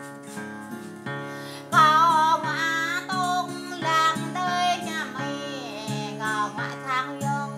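A woman singing with vibrato over a strummed acoustic guitar. Guitar chords run throughout, and the voice comes in loudly about two seconds in.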